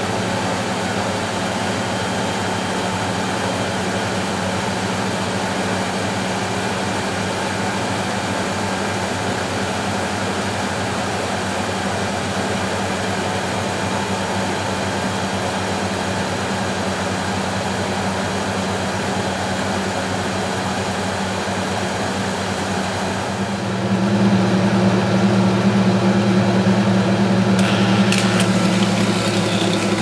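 Miele Automatic 416 front-loading washing machine running with a steady electric hum. About 24 seconds in, a louder second hum joins it, and a few short clicks follow near the end.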